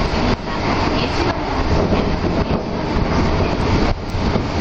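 Shōnan Monorail's rubber-tyred suspended car running through a tunnel, heard from inside the car: a steady, dense running noise with two brief dips in level.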